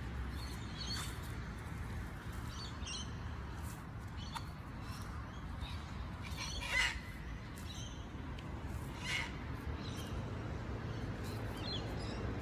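Birds chirping and calling now and then over a steady low rumble, with the loudest call about seven seconds in.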